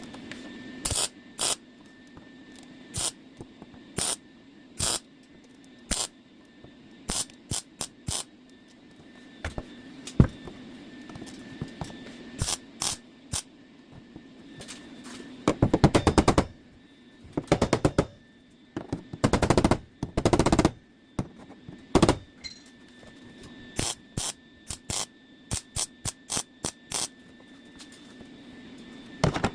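Wire-feed welder laying short plug welds and tacks through drilled holes, fusing a new steel floor patch panel to the body. It is a series of brief crackling bursts, most well under a second, with a few longer runs of about a second past the middle.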